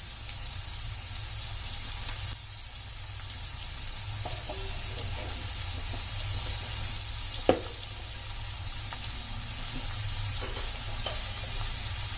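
Potato and capsicum cubes sizzling steadily in oil in a kadai, with scattered small crackles and one sharp click about seven and a half seconds in.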